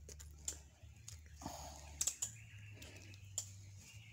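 Scattered small clicks and rustles of hands handling a freshly caught snakehead fish, over a steady low hum.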